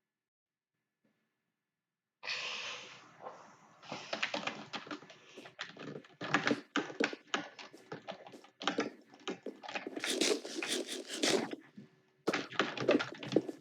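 Typing on a computer keyboard: a rapid, irregular run of keystrokes that starts about two seconds in, with a brief pause near the end.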